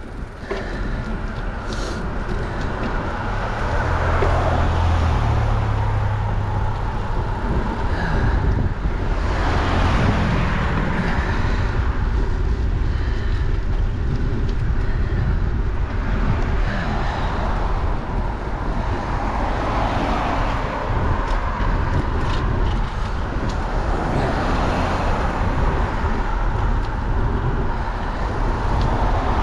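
Steady wind rushing over the microphone of an action camera on a moving bicycle, with the rumble of tyres on asphalt. Several cars pass in the other lane, each a swell of road noise that rises and fades.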